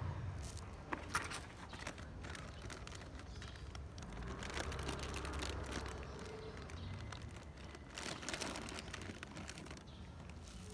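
Soft scattered clicks and crackles over a low steady hum, growing denser later on as a cat crunches dry kibble.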